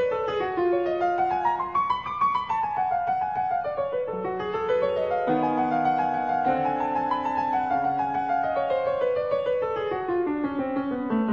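Background piano music: quick runs of notes climbing and falling in long sweeps.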